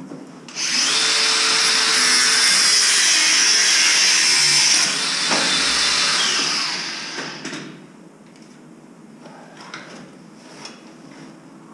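Handheld angle grinder running on the steel frame tubing, a loud hissing grind with a steady motor whine. It starts about half a second in, runs for about six seconds and then winds down. A few light metal knocks follow near the end.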